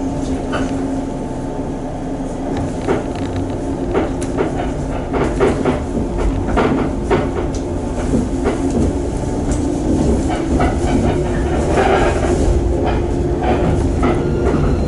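Shinano Railway electric train heard from inside the car while running: a steady low hum with a tone underneath, and wheels clacking over rail joints from about two seconds in. The sound grows gradually louder.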